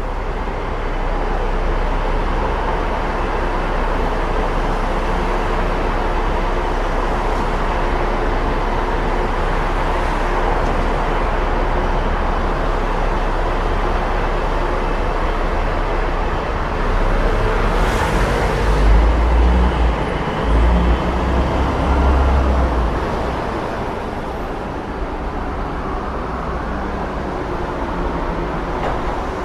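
Continuous road traffic: a steady wash of passing vehicles and tyre noise. A louder, deeper rumble swells about two-thirds of the way through, then eases.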